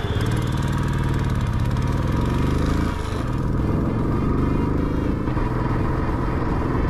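Royal Enfield Classic 350's single-cylinder engine pulling away and accelerating through the gears. The pitch rises for about three seconds, dips at a gear change, then climbs again.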